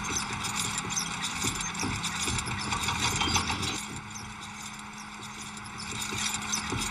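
Rapid, uneven knocking like clopping hooves over a steady hiss, dropping back for a couple of seconds midway.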